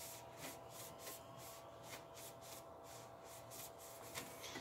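Faint rubbing of a cloth wiped over a race car helmet's shell in quick, irregular strokes, about two to three a second, cleaning off sprayed cleaner and mud.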